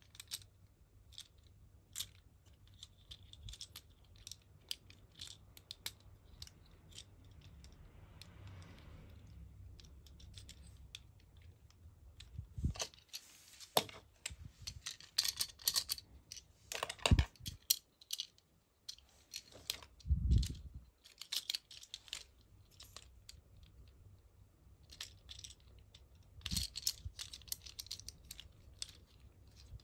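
Small plastic clicks, snaps and rattles of a transforming ambulance robot toy's parts being folded and clicked into place by hand, with a few louder knocks.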